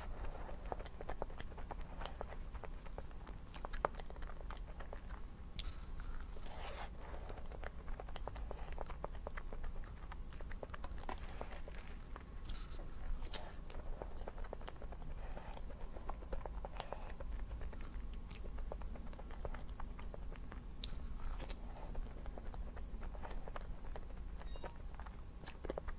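A person chewing and biting food close to the microphone, with scattered small clicks and wet smacks, over a steady low hum.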